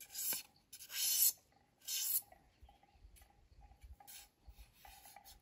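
Knife blade shaving along a thin stick: three scraping strokes about a second apart, then only faint light scraping.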